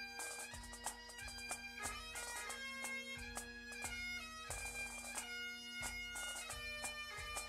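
Bagpipe music: a steady drone held beneath a quick-moving chanter melody.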